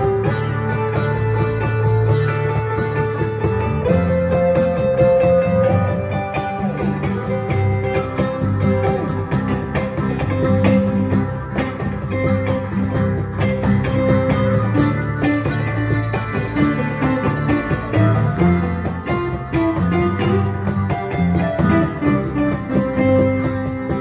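Live band playing an instrumental passage: acoustic and electric guitars over a steady beat, with no singing.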